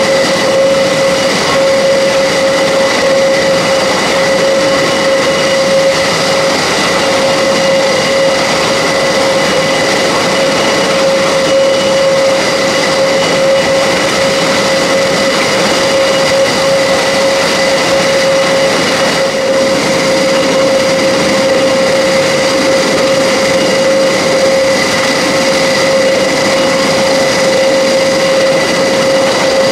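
A parked Airbus A400M's turbines running steadily on the ground: a loud, even rush with a constant whine and a higher whistle above it.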